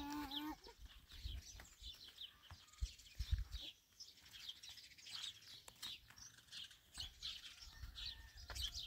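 Small birds chirping in many short, quick calls, faint against the open air. A brief voice sounds right at the start, and a couple of low thumps come about three seconds in.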